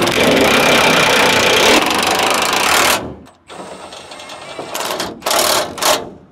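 Cordless impact wrench hammering steadily for about three seconds as it drives a bed-mounting bolt into the truck frame, then cutting off. Near the end come two short bursts of the impact wrench on the rear bumper bolts.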